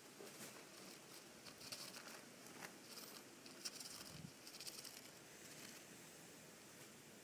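Faint rustling and crinkling of crumpled paper-towel bedding in a hamster's nest as it shifts, with scattered light ticks, busiest between about one and five seconds in.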